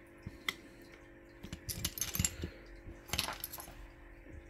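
Light metallic clicks and clinks: small metal tools and engine parts being handled and set down on a workbench, a few scattered taps with a cluster around the middle.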